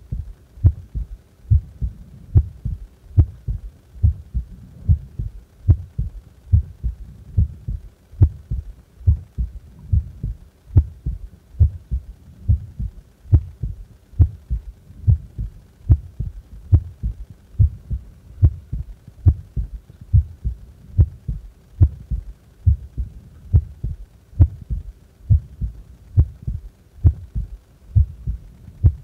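A human heart beating at rest, each beat a pair of low thumps (lub-dub) repeating in a steady, even rhythm.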